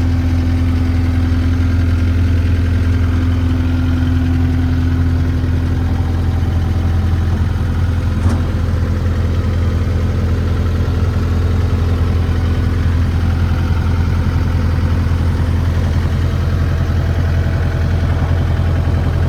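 A Takeuchi TL8 track loader's 3.3 L four-cylinder Kubota turbo diesel running at a steady, even speed, with a single short click about eight seconds in.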